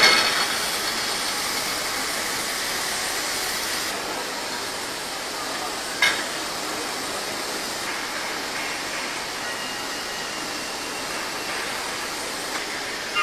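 Steady hiss of steam escaping from a standing steam locomotive, with a brief knock about six seconds in.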